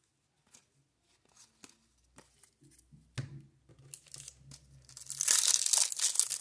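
Foil wrapper of a 1994 Topps Stadium Club baseball card pack being crinkled and torn open by hand, loud from about five seconds in. Before that come a few faint taps and a soft thump.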